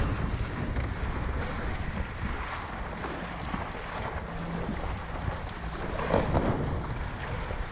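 Wind buffeting the microphone over the rush of water against a windsurf board, with a louder surge of water about six seconds in.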